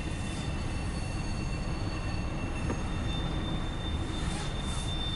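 Norfolk Southern intermodal freight train's container cars rolling past in a steady low rumble, with a faint high, steady wheel squeal coming in about three seconds in.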